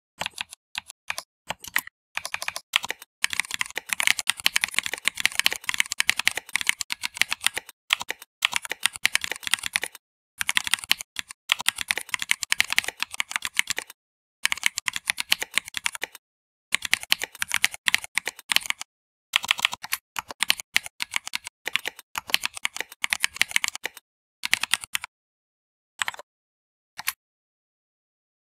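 Typing on a computer keyboard: fast runs of keystrokes broken by short pauses, thinning to a few single key presses near the end.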